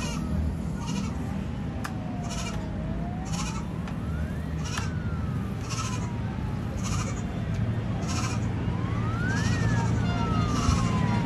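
Street noise with a steady low rumble of traffic and a siren wailing slowly up and down. A short high hiss repeats about once a second.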